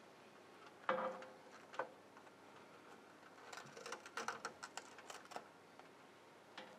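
Fiber-optic patch cable being handled and worked into cable clips on a metal media panel. A sharp knock comes about a second in and a second one shortly after, then a quick run of small clicks and rustles, and one last tick near the end.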